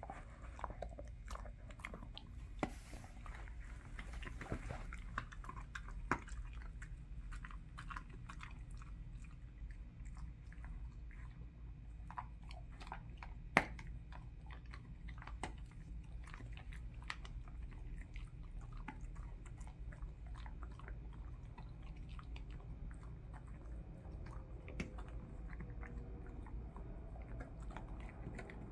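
A dog chewing a Kirkland dental chew: faint, irregular gnawing and crunching with teeth clicking, and one sharper click about halfway through.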